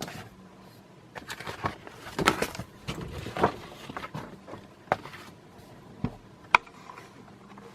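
Paper brochure being handled and its pages turned: scattered rustles and light clicks, with one sharp click about six and a half seconds in.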